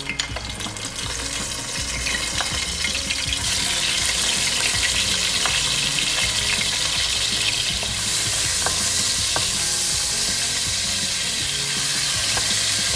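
Hilsa fish head pieces sizzling as they go into hot mustard oil in a pot. The frying hiss builds over the first few seconds, then holds steady, with a few light knocks of a wooden spoon.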